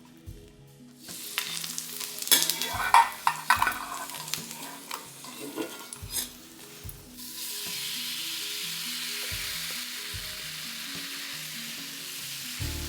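Whole garlic cloves frying in hot olive oil in a pan. Irregular crackling and clatter of stirring start about a second in, then about seven seconds in it settles into a steady sizzle.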